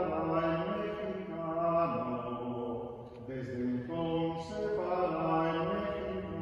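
A slow hymn sung in long, held notes, in phrases of about four seconds with a brief pause about two and a half seconds in.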